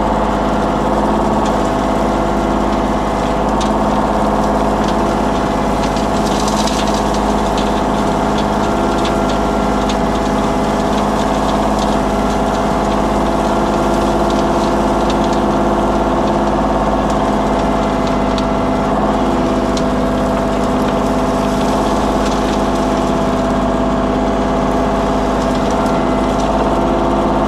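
Engine of a compact earthmoving machine running steadily at constant speed, with light clicks and rattling about six seconds in.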